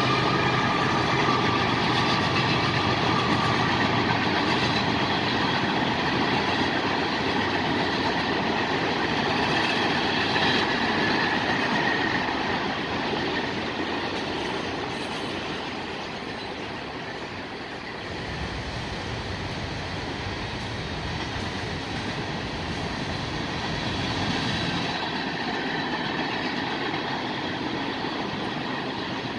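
Cars of a CSX mixed freight train rolling past: a steady noise of steel wheels on rail, a little quieter in the second half.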